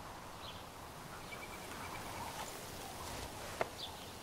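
Faint outdoor ambience with scattered small bird chirps and a short trill of quick repeated notes, and a single sharp click about three and a half seconds in.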